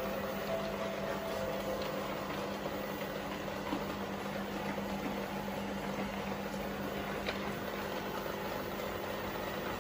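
Steady hum of running aquarium equipment with water bubbling from the air line, and a few faint ticks.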